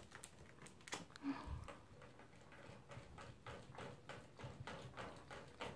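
Toy poodle drinking from a crate-mounted water bottle, its licks making faint, even clicks on the metal drinking spout, about three a second. A couple of soft low thumps come in the first second and a half.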